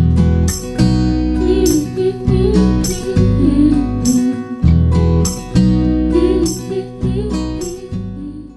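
Background pop song with strummed acoustic guitar, bass and a steady beat, fading out near the end.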